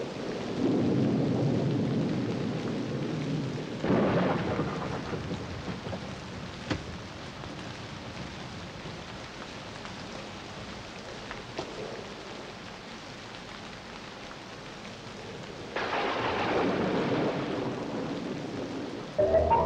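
Steady rain with thunder: a rumble about a second in, a sudden clap about four seconds in, and another sudden clap about sixteen seconds in that rolls away slowly. Music comes in just before the end.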